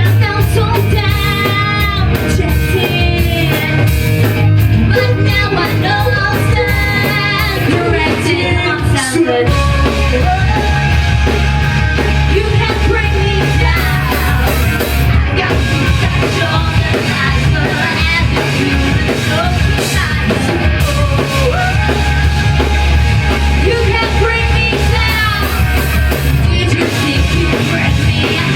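A rock band playing live, loud and steady, with singing over the instruments.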